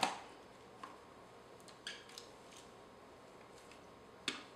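Faint clicks and taps from an Olympus OM-D E-M5 camera body and Voigtlander lens being handled as the lens is fitted to the mount, with one sharper click about four seconds in.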